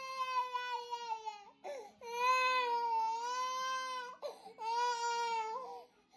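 A toddler crying: three long, steady wails with short breaths between them, the last ending just before six seconds in.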